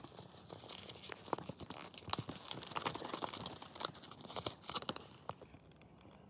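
Sticks of gum in foil wrappers and a small cardboard gum pack being handled, crinkling and rustling with many small clicks, dying down about five and a half seconds in.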